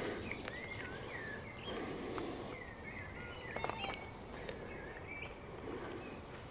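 Birds singing outdoors: short, scattered chirps and whistles over a faint background hiss, with a few light clicks about three and a half seconds in.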